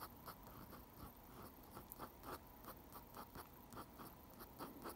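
Ink pen scratching on paper in short, quick strokes, a few a second, as fine hatching lines are drawn; faint.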